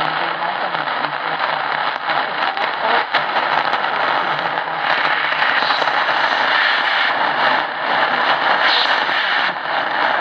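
Tecsun PL-680 portable radio's speaker giving the hiss and crackle of weak medium-wave AM reception as the dial is tuned from 580 up through 585 to 600 kHz, the audio not muting while tuning.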